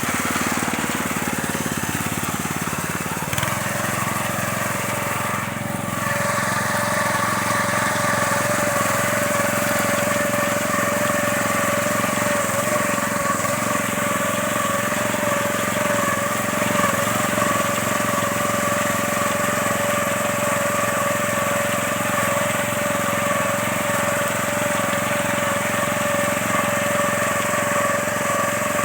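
Small engine of a wheat-harvesting machine running steadily with a constant high whine. The sound shifts about three and six seconds in, then holds even.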